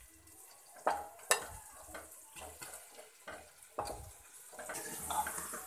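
Steel spoon scraping marinated mutton and onions off a plate into an aluminium pressure cooker, with a few sharp knocks of the spoon. The meat starts sizzling in the hot tomato masala, the sizzle growing louder near the end.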